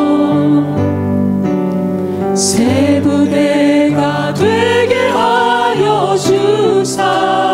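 Mixed praise team of men and women singing a slow worship song into microphones, backed by sustained instrumental accompaniment whose low notes change in steps under the melody.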